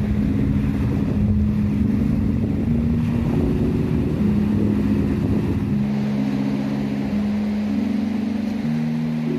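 Background music: slow held notes in a low register, moving from one pitch to the next every second or so over a soft noisy wash.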